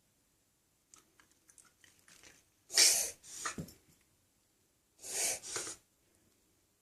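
A dog coughing: faint snuffling first, then two harsh fits about two seconds apart, each of two hacks, the first the loudest. The owner wonders whether it is a heartworm-related cough.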